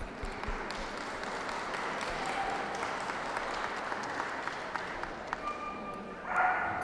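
Ringside audience applauding steadily. Near the end, short high-pitched calls, most likely a dog yelping, sound over the clapping.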